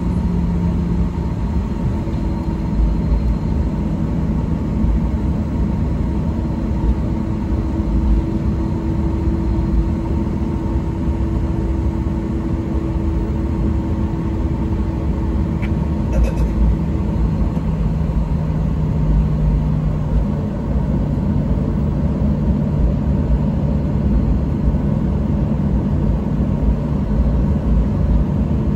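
Cabin noise of a Boeing 737-800 taxiing, its CFM56-7B engines running at low thrust: a steady rumble with low humming tones, one fading out and another coming in about two-thirds of the way through.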